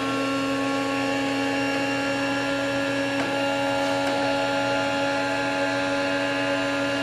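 Small electric motor of an automatic chicken coop door running steadily as it winds the sliding door up to open it: an even, pitched motor hum.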